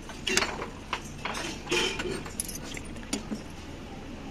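A metal ladle stirring thick chicken curry in an aluminium pressure cooker, clinking and scraping against the pot several times at uneven intervals.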